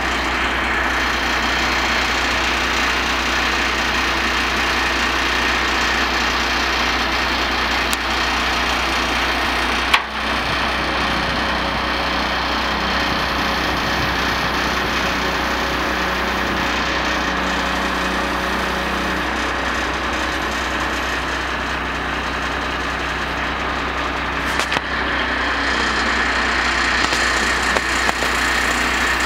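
A 1990 International crane truck's engine running steadily while the crane's hook block is worked, with a steady tone coming and going in the middle and a single sharp knock about ten seconds in.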